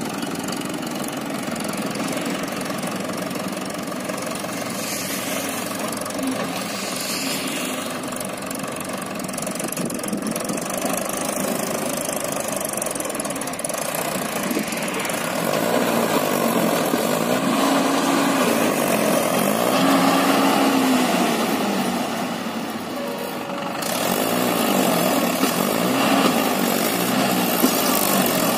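Mahindra 575 DI tractor's diesel engine running under load while it pulls a fully loaded trolley over soft ground. The engine note gets louder about halfway through and rises and falls several times as the throttle is worked.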